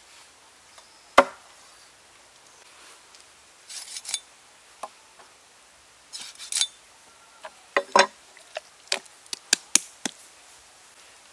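Cleaver and raw whole chicken handled on a wooden chopping board: one sharp knock about a second in, brief rustling or scraping around four and six seconds, then a quick run of sharp knocks and taps between about eight and ten seconds.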